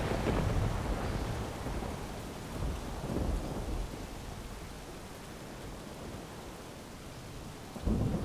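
Thunderstorm: thunder rumbling over steady rain, with a deep rumble at the start, another about three seconds in, and a sudden clap near the end.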